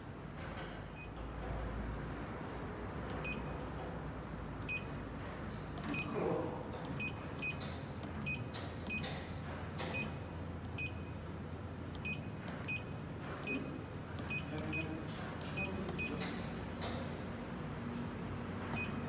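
Short electronic key-press beeps from the touchscreen control panel of a FRONT program-controlled paper cutter, one beep per touch, about eighteen at irregular intervals as cutting sizes are keyed in.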